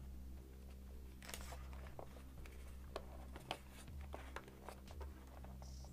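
Faint handling sounds of fingers working servo wires and a connector inside the foam fuselage of an RC plane: small scattered clicks and brief rustles over a steady low hum.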